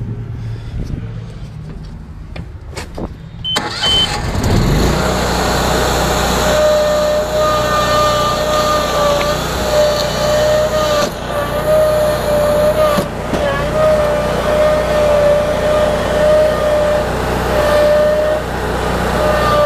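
Walker riding mower's engine running at idle, then opened up about four seconds in and running steadily loud with a high whine, as the mower is driven to try to climb back over the curb it is stuck on.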